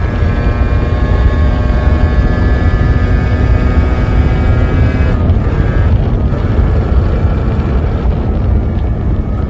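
Yamaha RZ350's two-stroke parallel-twin engine running loud and steady. About five seconds in, its even tone gives way to a rougher sound.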